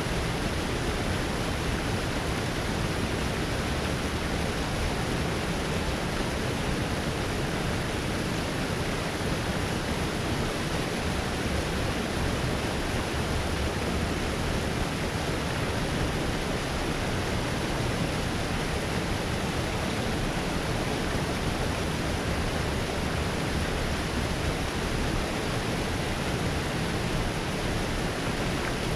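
Water pouring out of a concrete spillway outlet and rushing into the channel below, a steady, unbroken rushing noise.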